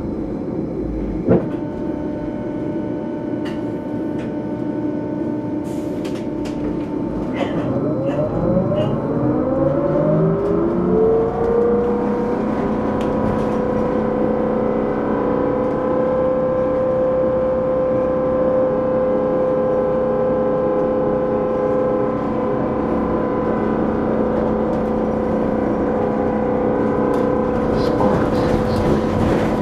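Electric trolley bus heard from on board, its traction motor whine rising in pitch as the bus accelerates, then holding a steady hum at cruising speed. A single sharp click comes about a second in.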